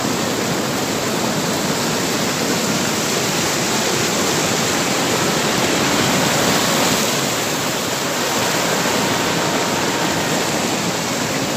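Water pouring over a low stone weir, a steady loud rush of white water.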